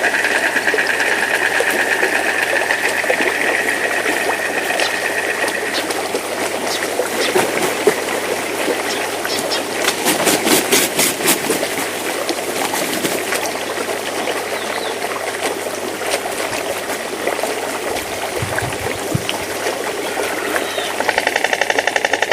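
A young bird's rapid, rhythmic calling, a fast train of pitched pulses, at the start and again near the end. In between come rustling and a cluster of sharp clicks.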